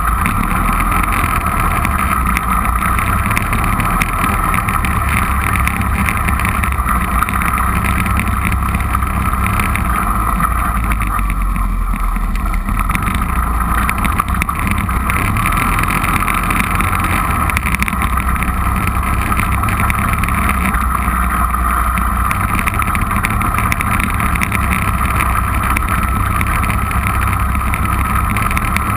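Four-wheeler (ATV) engine running steadily as the machine is ridden along.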